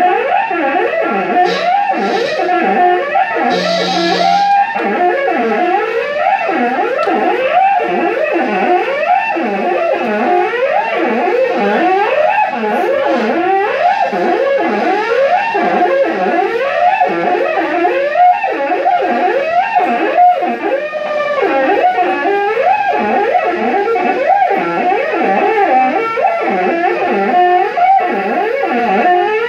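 Live band music: an electric guitar run through effects plays a wavering line that slides up and down in pitch about twice a second, with a few brief cymbal-like splashes in the first few seconds.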